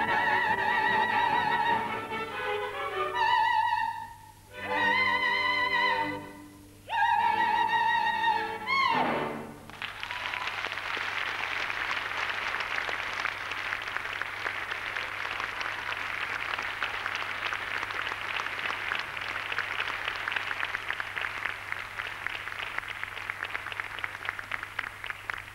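Operetta singers with orchestra sing the closing phrases of a number, with wavering held notes, the last one falling away about nine seconds in. From about ten seconds in, an audience applauds steadily.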